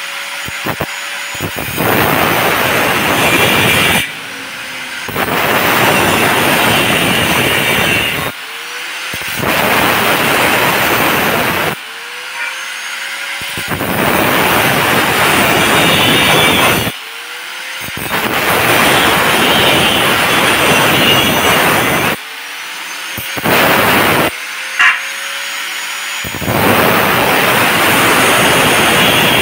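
Angle grinder with an abrasive cut-off disc cutting galvanized steel square tubing: about six loud cutting passes of a few seconds each. Between passes the disc runs free with a whine that rises in pitch as the motor speeds back up off load.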